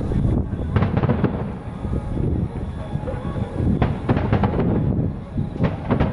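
Aerial fireworks shells bursting over a constant low rumble of booms, with clusters of rapid crackling reports about a second in, around four seconds in and again near the end.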